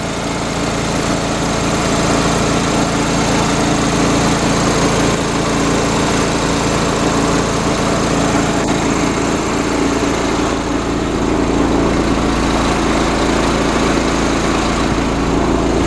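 Gasoline-engine North Star air compressor running steadily under load, its pump building pressure to top off the tank.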